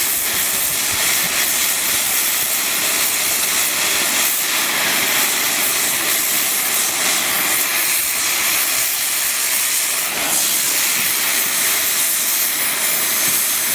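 A steady, loud hiss that does not change.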